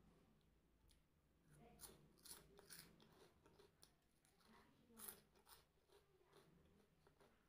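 Crunchy snacks being bitten and chewed: a run of quiet, irregular short crunches, the loudest about five seconds in.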